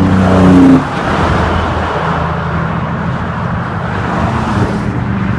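A semi truck's air horn blowing loudly as the truck passes, then cutting off sharply about a second in; steady highway traffic noise with the low rumble of trucks follows.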